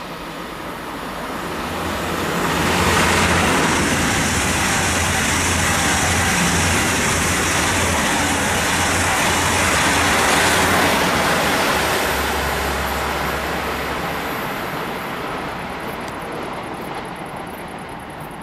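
Two coupled ICE-T electric multiple units passing through at speed: a rush of wheel, rail and wind noise that swells over the first few seconds, holds for about eight seconds with a thin high whine and a low rumble underneath, then fades away as the train recedes.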